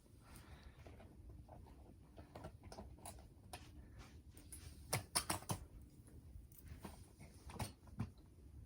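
Footsteps crunching in snow, irregular and faint, with a quick run of louder crunches about five seconds in.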